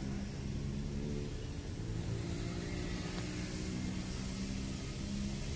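Road traffic on a busy city street, with a nearby motor vehicle's engine running at a steady pitch over the general noise of passing cars.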